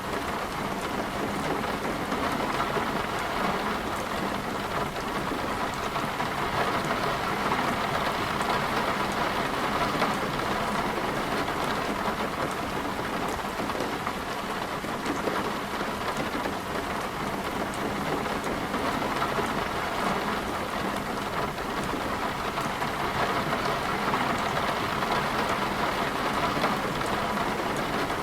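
Rain falling steadily in a storm, an even hiss of drops with no break.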